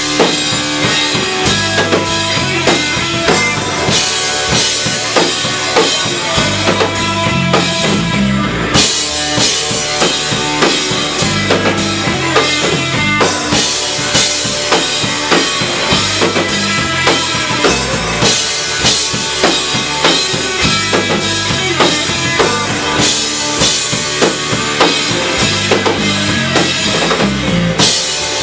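Live band playing, a drum kit with kick and snare keeping a steady beat under sustained pitched instruments.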